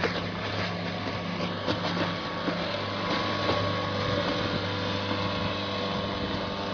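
Outboard motor on a small aluminium skiff running steadily at speed.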